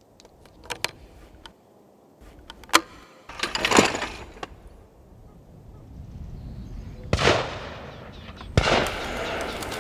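Metallic clicks of a Browning break-action shotgun being handled and closed, then a rushing whoosh as a clay target is thrown. Two shotgun shots follow about a second and a half apart near the end, the second trailing off.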